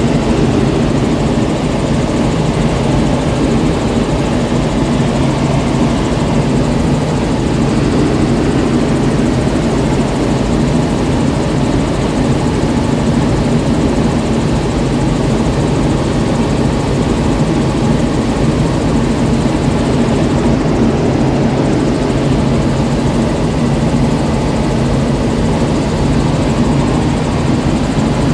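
Helicopter engine and rotor running in flight, heard from inside the cabin: a loud, steady drone with a low hum.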